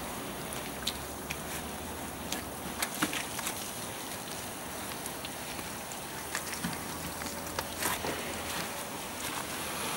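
Long-handled wash brush scrubbing a car's wet bodywork and being dipped into a bucket of soapy water: a steady scrubbing noise with scattered small knocks and splashes.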